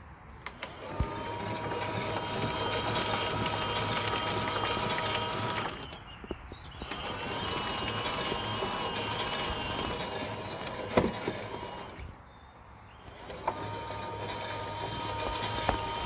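Toy Miele washing machine's small electric drum motor whining as it runs its wash cycle, in stretches of about five seconds with short pauses between them, after a button click near the start.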